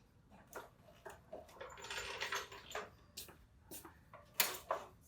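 Small clicks, taps and knocks of handling in a garage, with a short rustling scrape about two seconds in.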